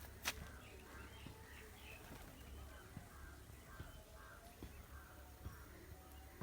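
A bird calling over and over, faintly, about two short notes a second, with a sharp click just after the start.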